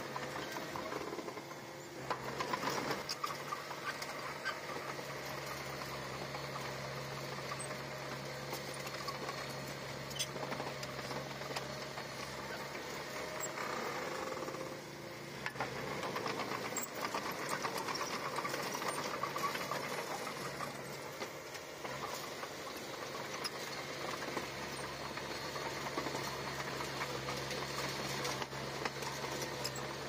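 Komatsu D20P bulldozer's diesel engine running steadily under work. The sound dips briefly twice, about a second and a half in and around the halfway mark, then comes back up.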